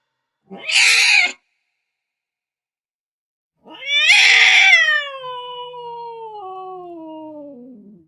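Angry domestic cat: a short harsh, noisy cry, then a couple of seconds later a long drawn-out yowl that rises briefly, then slides slowly down in pitch and fades away over about four seconds.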